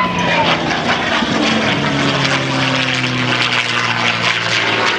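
P-51 Mustang's Merlin V12 engine howling at full power as the fighter flies its display pass overhead. The engine note drops in pitch about two seconds in as it passes.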